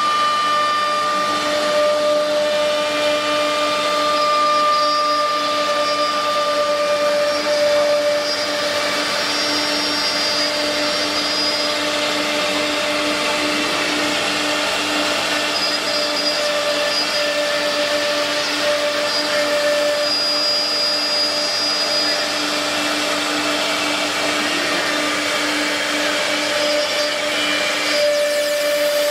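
Multi-spindle CNC router cutting particleboard: a steady high spindle whine over the hiss of the bit routing through the board.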